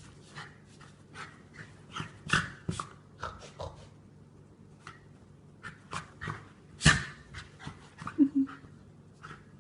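Jack Russell terrier sneezing and snorting in a fit, in many short, irregular bursts, with panting between them. The loudest come about two and seven seconds in, and there is a brief low vocal sound about eight seconds in.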